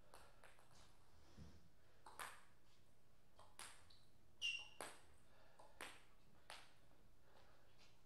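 Faint, irregular clicks of a celluloid-type table tennis ball being bounced, about seven taps. The loudest, about halfway through, rings briefly with a high ping.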